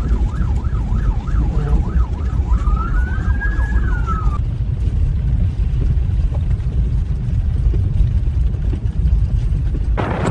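Emergency vehicle siren in a fast yelp, switching to one slower rising and falling wail and cutting off about four seconds in. A heavy low rumble runs underneath.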